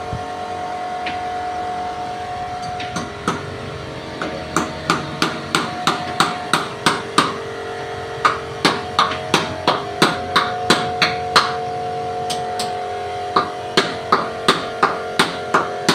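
Repeated hammer blows on metal, about three a second, each ringing briefly, in two runs with a short pause between, over a steady hum.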